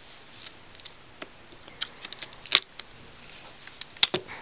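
Hands handling a cardboard-covered music album: scattered light taps and clicks, with a sharper knock about two and a half seconds in and two more near the end.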